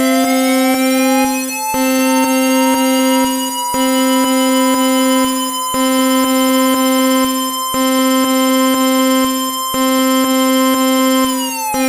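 Synthesized emergency alert tone: a siren-like glide that rises and then holds a high pitch, falling again near the end, over a low buzzing tone that breaks briefly about every two seconds.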